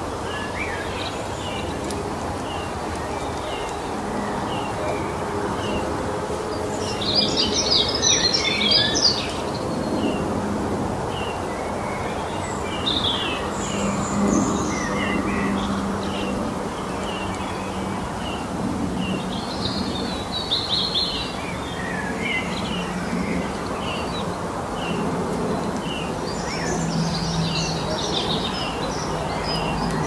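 Songbirds singing outdoors: a short high chirp repeated about once a second, with bursts of fuller warbling song several times, over a steady low background rumble.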